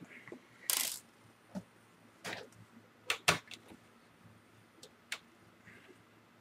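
Scattered small clicks and a brief scrape from a screwdriver and small parts being handled on the plastic bottom case of a partly disassembled Dell Vostro 1100 laptop: a short scrape just under a second in, then about half a dozen sharp separate clicks.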